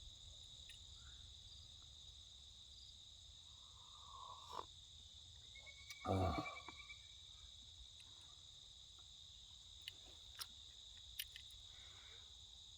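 Faint, steady high-pitched insect chorus running on unchanged, with a few faint clicks and a soft thump about six seconds in.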